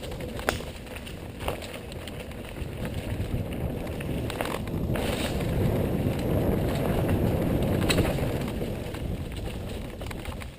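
Mountain bike descending a dirt trail fast: tyre roar and wind on the microphone, swelling in the middle, with a few sharp knocks and rattles as the bike hits bumps.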